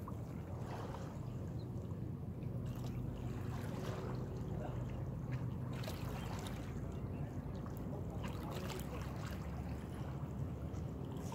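Small waves lapping against shoreline rocks over a steady low rumble.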